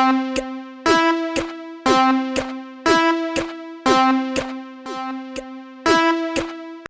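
Synthesized level-crossing bell: a bell-like electronic note with a quick downward sweep, answered by a shorter note about half a second later, the pair repeating about once a second in a steady warning rhythm. It cuts off suddenly at the end.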